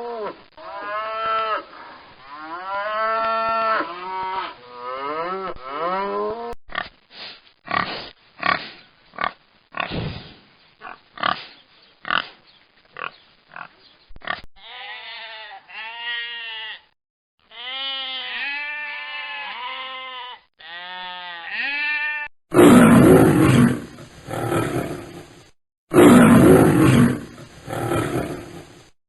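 Several different animals calling in turn: a string of repeated calls that rise and fall in pitch, then a run of short grunts, then more of the pitched calls, and loud roars over the last six seconds.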